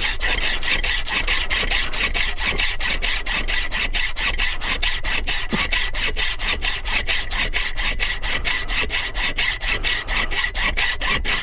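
Fine-bladed hand saw cutting a metal key blank clamped in a vise, with quick, even back-and-forth strokes at about four to five a second.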